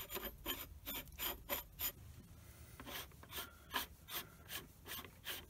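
Brass helical gear being wound by hand along a fine-threaded steel tube in a lathe apron, with short scraping strokes at about three a second and a brief pause around two seconds in. The threads rasp as they turn because of a tiny burr on the end of the brass gear's thread.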